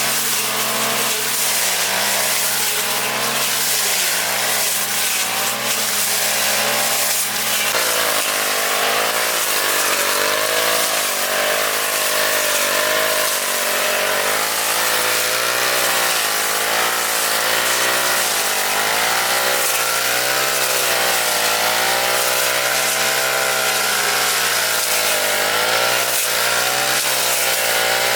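Small lawn mower engine running steadily at high speed, its pitch repeatedly dipping and recovering as it cuts through grass.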